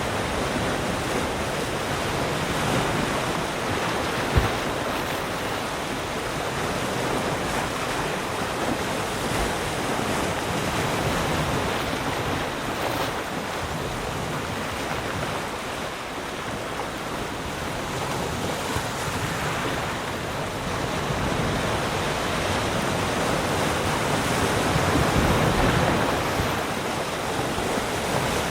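Calm ocean waves lapping and washing around rocks, a continuous wash that swells and eases slowly and grows louder near the end. A brief sharp knock about four seconds in.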